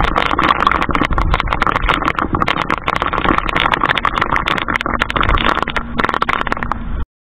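Tropical-storm wind and rain lashing the ship: a dense crackling patter of rain over a heavy low rumble. It cuts off suddenly near the end.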